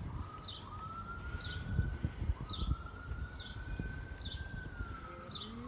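A siren wailing: its tone sweeps up, holds high, then slowly falls near the end. A bird gives a short high chirp about once a second. Low rumbling noise lies underneath.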